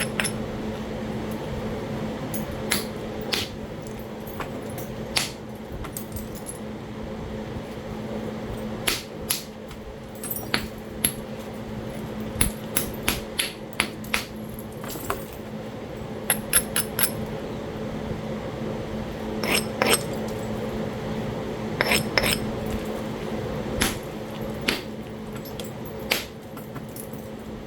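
Sharp, irregular percussion clicks and taps of a tool striking Talahata quartzite during flintknapping, some coming in quick runs, as flakes and junk are driven off the edge of a biface. A steady low hum runs underneath.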